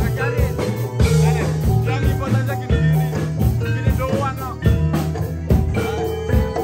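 Live band playing: a drum kit keeps a steady beat under sustained electric bass notes and keyboard, with a bending melody line on top.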